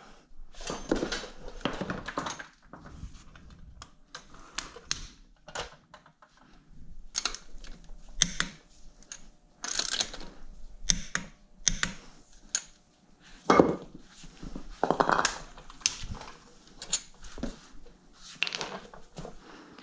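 Hand tools clicking and clanking on a car wheel's lug nuts as the wheel is refitted, with irregular runs of quick metallic clicks and a few louder knocks and clunks a little past the middle.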